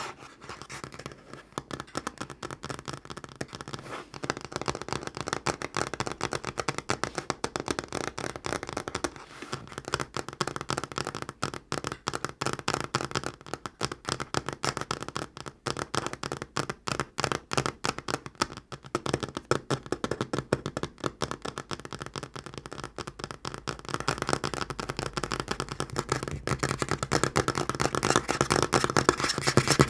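Natural fingernails tapping fast on a tabletop: a dense, rapid run of small clicks that gets louder near the end.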